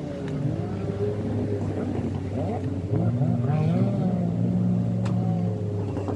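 Several jet ski engines running at speed, their pitch rising and falling as the riders throttle through turns, with a sharp rev-up a little after three seconds.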